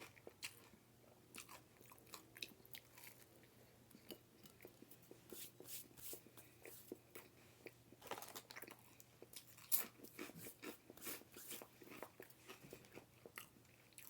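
A person chewing and biting food close to the microphone: faint, irregular crunches and wet mouth clicks, with one louder bite a little under ten seconds in.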